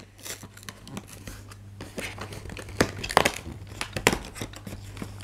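Cardboard advent calendar door being pried and torn open by hand: irregular crinkling and tearing of paperboard, loudest in a cluster about three seconds in and again about a second later.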